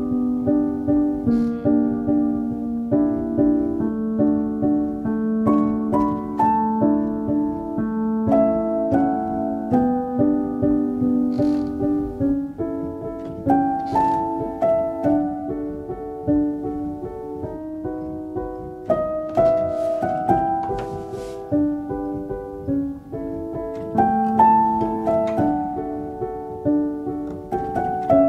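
Background piano music, a slow run of single notes over held chords, about two notes a second.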